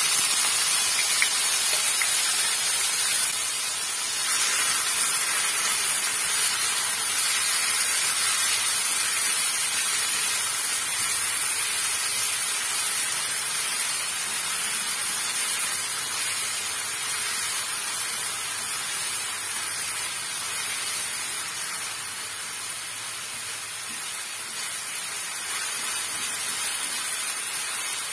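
Chopped potato sticks sizzling in hot oil in a frying pan: a steady frying hiss that eases off gradually as they cook.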